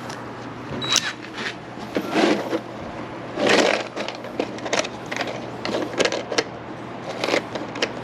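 Irregular clicks, knocks and short scraping or rustling noises, like tools and objects being handled and moved about, the loudest about three and a half seconds in, over a steady low hum.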